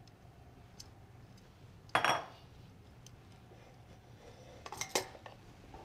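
Metal kitchen tongs and glass bowls clinking as noodles are moved into a glass mixing bowl: one loud clink about two seconds in and a few lighter clicks near the end.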